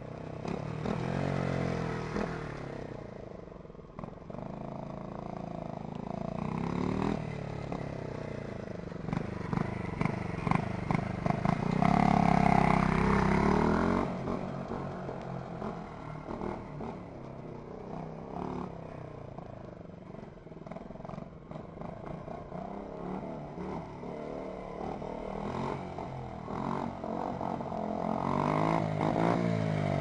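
Honda Monkey minibike's small single-cylinder four-stroke engine running through its exhaust, revving up and down as it rides around and past, pitch rising and falling with each pass. It is loudest around the middle, about twelve seconds in.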